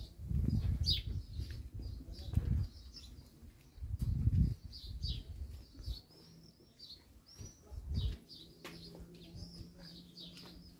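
Small birds chirping and twittering in short, repeated high notes, with a few arched calls around the middle. Several bursts of low rumble come and go, the loudest about four seconds in and again near eight seconds.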